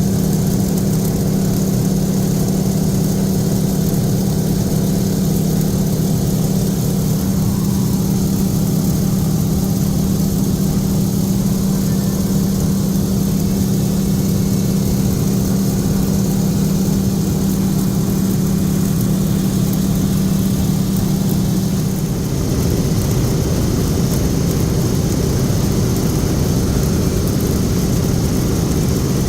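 The BT-13 Valiant's Pratt & Whitney R-985 Wasp Junior radial engine and propeller running with a loud, steady drone. About twenty seconds in, the engine note changes, as with a change of power setting.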